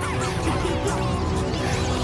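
Background music for an animated sequence: steady held low notes with short, quick high glides scattered over them.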